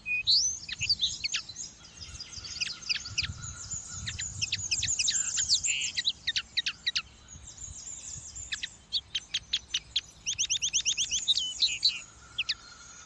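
Small finch singing: a fast, twittering run of quick high chirps and notes, with a rapid trill about ten seconds in.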